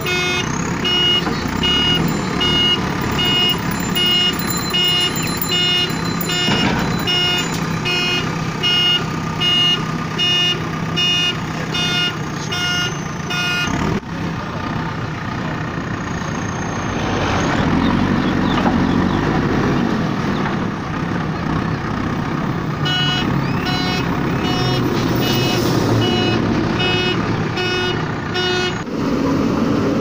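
JCB 3DX backhoe loader's diesel engine running while its warning beeper sounds in steady, even pulses. The beeping stops abruptly about halfway through, with only the engine left, and comes back for several seconds near the end.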